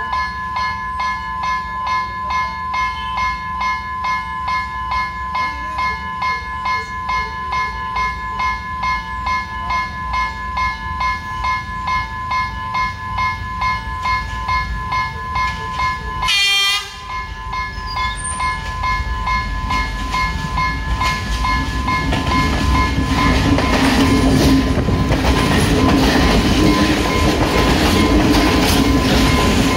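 Level-crossing warning bell ringing in a steady pulse, about two beats a second. About halfway through, the approaching train sounds one short horn blast. In the last several seconds a Class S8 diesel multiple unit passes over the crossing, its engine and wheels on the rails growing louder and drowning the bell.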